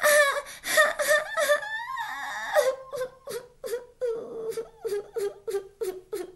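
A woman voicing a pig puppet's pretend crying: wavering wailing sobs, then a held whimper broken by quick sobbing catches about three times a second.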